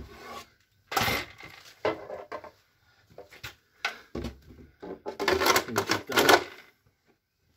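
Handling clatter from a Husqvarna 120 Mark II chainsaw: a sharp knock about a second in as the saw is set down on concrete, another a second later and a few small clicks, then a dense rattle of plastic on metal near the end as the orange plastic bar cover is pushed over the bar and chain.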